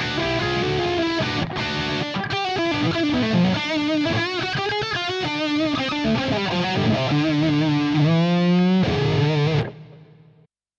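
Electric guitar played through a Fractal Audio FM9 amp-modeler preset: an overdriven lead line with wide vibrato on held notes. It ends on a long vibrato note that dies away, leaving silence just before the end.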